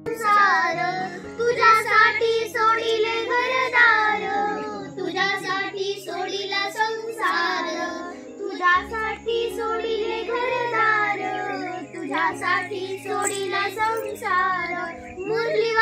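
Group of young schoolgirls singing a song together in unison, with steady, long-held low keyboard notes underneath.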